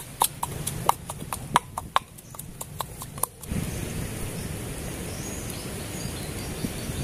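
A run of sharp, irregular clicks and snaps, then about three and a half seconds in a steady rushing noise begins as cooking oil is poured in a thin stream into a clay cooking pot over a wood fire.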